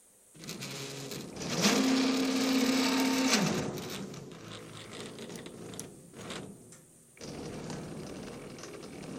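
CNC plasma table's stepper-driven gantry moving. Its whine ramps up about a second and a half in, holds steady for a couple of seconds, then ramps back down, as on a fast move. Shorter, uneven movements follow, and it stops briefly near the end.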